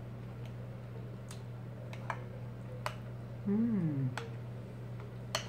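A metal fork clicking against a dish of cooked mushrooms several times as food is picked up. About halfway through comes a short hummed 'mm' that falls in pitch. A steady low hum runs underneath.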